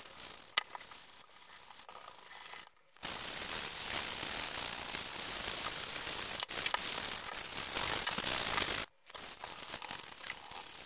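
Steel draw knife blade being sanded by hand with an abrasive pad, a scratchy rubbing noise. It is faint at first, turns loud and steady about three seconds in, and breaks off briefly near the end before resuming.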